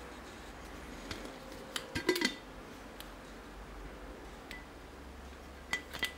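Glass blender carafe and its lid being handled: a few light clinks and knocks, a quick cluster about two seconds in and two more near the end, some with a brief glassy ring.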